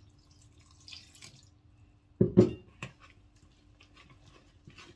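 Water poured from a glass jug into a bowl of flour for pancake batter, followed by two loud knocks about two seconds in and lighter taps of a wooden spoon stirring in the bowl near the end.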